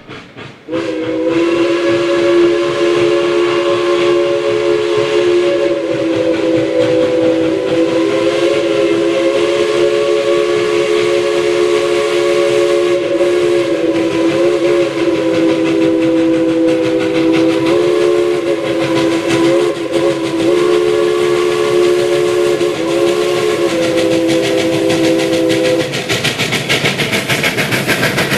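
Steam locomotive's chime whistle blowing one long, steady chord of several notes, wavering slightly a few times, before cutting off near the end. A fast, even pulsing from the running train is left after the whistle stops.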